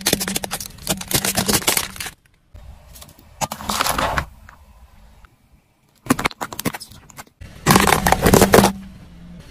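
A car tyre running over and crushing things in a quick series: hard plastic toy crocodiles cracking and snapping for about two seconds, then shorter crunching bursts. The longest and loudest burst comes near the end, as a pile of small green fruits is crushed.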